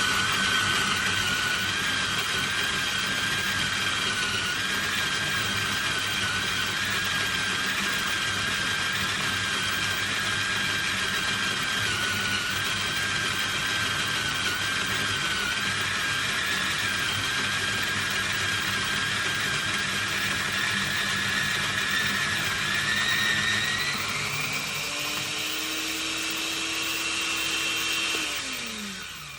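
ARCO 2-in-1 coffee grinder running on its electric motor base, grinding espresso beans with a steady whine. Near the end the pitch rises as the grinder empties and the motor runs unloaded, then it winds down and stops.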